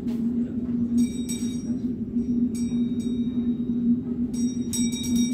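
Metallic clinks from a shooting gallery, each leaving a bright ringing tone at the same pitches, a few spread out and then several in quick succession near the end, over a steady low hum.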